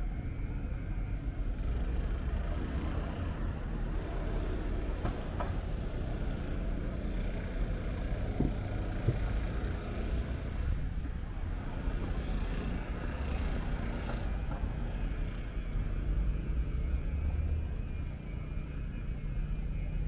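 City street traffic: cars driving past, heard as a steady low rumble with road noise.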